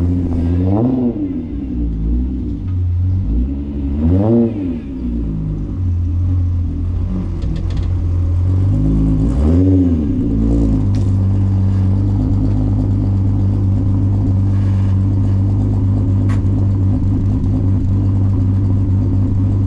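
Cammed VR6 engine in a Volkswagen, with a loud aftermarket exhaust, revving up and falling back three times in the first ten seconds, then holding a steady drone as the car drives on.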